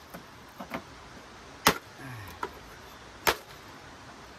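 A blade chopping into a bamboo tube: two loud, sharp strikes about a second and a half apart, with a few lighter taps between.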